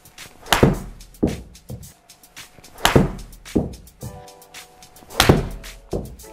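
Background music with a steady beat of hard drum hits over held notes.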